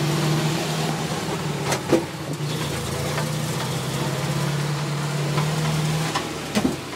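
The 18 hp engine of a custom mini fire truck running at a steady pitch while it drives, the drone dropping away about six seconds in. A couple of short knocks come through, one about two seconds in and another near the end.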